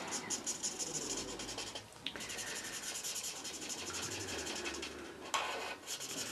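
Felt nib of a Winsor & Newton Promarker alcohol marker scribbling back and forth on paper as a colour swatch is filled in. The strokes are quick and scratchy, several a second, with a short pause about two seconds in.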